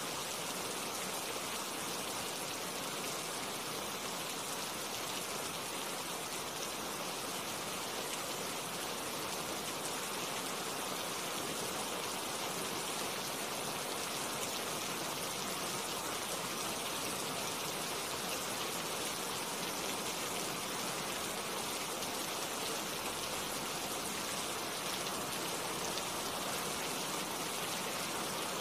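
Steady rain falling on tree leaves, an even hiss with a few faint drop ticks.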